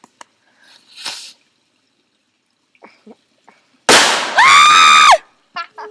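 Firework going off: a short faint hiss about a second in, then a sudden loud burst near four seconds in, followed by a shrill high tone held for under a second.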